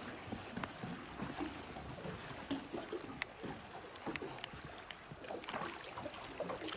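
Water sloshing against the side of a boat, with small scattered splashes and drips as a big fish is held in the water by hand and released.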